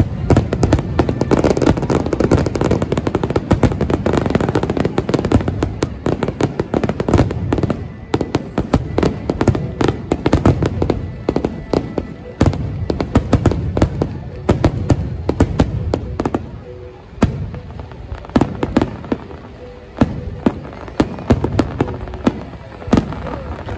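Aerial fireworks display: shells bursting in rapid, overlapping bangs and crackles, densest for the first several seconds, then thinning to separate sharp bangs.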